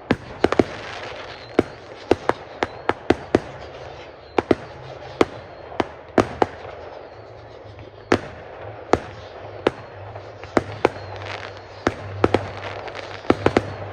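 Fireworks display: a rapid, irregular run of loud, sharp bangs from bursting shells, a couple each second, over a continuous crackling hiss.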